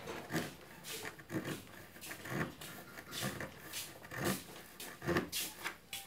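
Serrated table knife sawing through the plastic root of a fan propeller blade: rasping back-and-forth strokes, about two a second, until the blade comes free.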